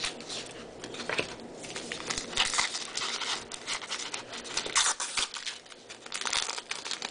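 Baseball trading cards being flipped through by hand: an irregular run of quick slides, flicks and rustles of card stock against card stock.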